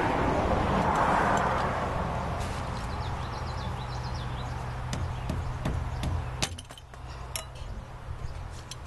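A seal puller scraping and prying at the old axle seal inside a Jeep Dana 35 rear axle tube, with a few sharp metal clicks and knocks in the second half. A steady low hum runs underneath.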